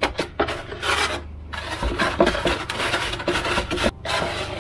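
Hands rubbing and pressing a curved sheet of 6 mm Depron foam as it is shaped into a round fuselage: a run of uneven scraping and rubbing strokes with short pauses.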